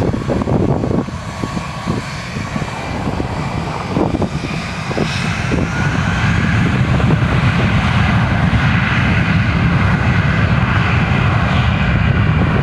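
Jet airliner engines running: a low rumble with a faint whine above it, growing louder over the first half and then holding steady.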